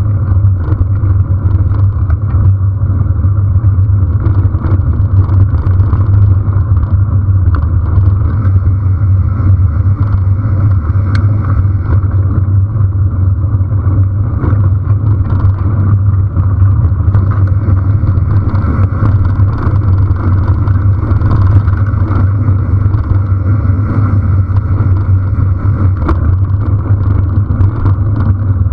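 Steady low rumble of riding along a dirt track: wind buffeting the camera's microphone mixed with tyre and road noise, with scattered small ticks and rattles.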